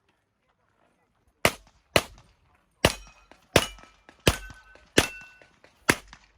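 Handgun fired in a string of about seven shots, roughly half a second to a second apart, with a short metallic ring after several of them from steel targets being hit.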